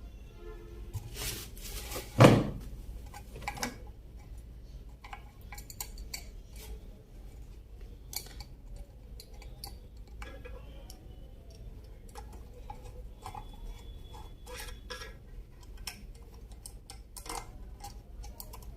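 Scattered small metallic clicks and clinks of tools and small metal parts being handled while an electric iron is worked on, with one louder sharp clack about two seconds in.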